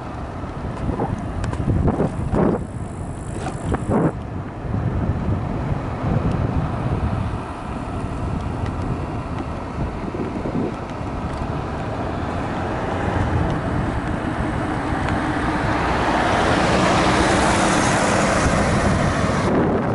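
Wind buffeting the microphone and road rumble from a moving electric scooter. Over the second half a minivan comes up from behind and passes close, its tyre and engine noise swelling to the loudest point near the end.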